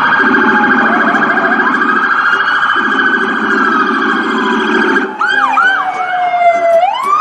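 Electronic sirens of police cars on an emergency run: a fast, pulsing high warble for about five seconds, then a few quick whoops, then a long wail that falls steadily and swings back up at the very end.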